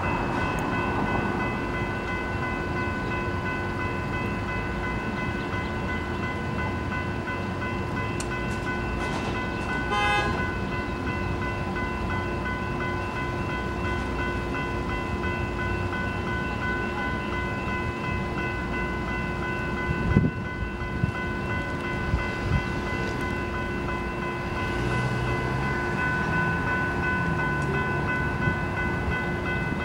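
Electronic railroad crossing bells, a General Signals Type 3 and a National Electric Gate bell, ringing continuously at an activated crossing, heard as several steady high tones over a low rumble. A few sharp knocks come about two-thirds of the way through.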